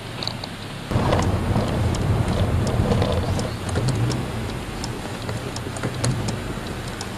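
Saab car's engine heard from inside the cabin over steady road hiss; about a second in the engine note jumps and grows louder as the driver works clutch and throttle for a double-clutch shift, then keeps running under power.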